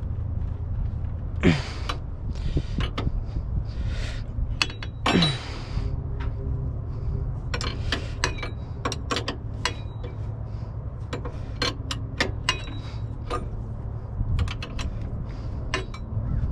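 Metal hand tools clicking and clinking as sockets and wrenches are handled and tried for size, over a steady low rumble, with two brief falling swoops in the first few seconds.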